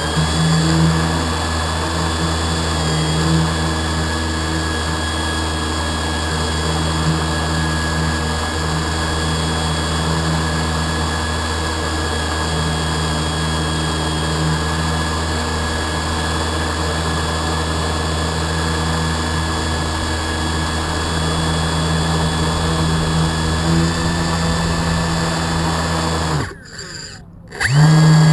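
Radio-controlled boat motor running at a steady speed with a steady whine, cutting out about 26 seconds in, then a brief burst of throttle near the end.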